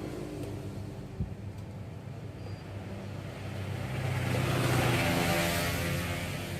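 A steady low hum, with a rush of noise like a vehicle going by that swells about halfway through and fades near the end.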